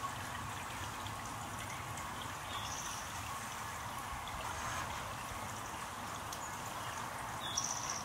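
Small backyard fountain jet splashing and trickling steadily, with two short high-pitched notes, one about a third of the way in and one near the end.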